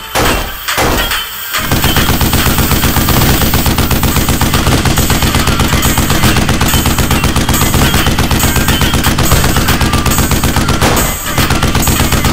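Rapid automatic gunfire: a few separate shots, then a long unbroken burst of machine-gun fire, with a short break near the end before it resumes. It is a loud gunfire sound effect laid over a Nerf-blaster fight, not the toys' own sound.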